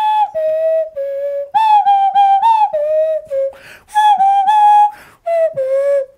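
3D-printed nose flute played by blowing through the nose with the mouth as the resonating cavity: a short whistle-like tune of separate notes in three phrases, each starting high and stepping down.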